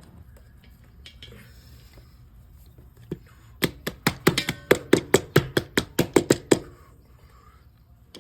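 Rapid run of sharp plastic clicks and taps, about six a second for some three seconds, as a 3D-printed cable plug is fitted around a cable and pressed into its wall hole. Quieter handling noise comes before the clicks.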